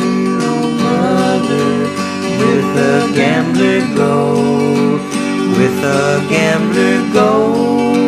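Music: acoustic guitar playing without vocals, with some notes sliding in pitch.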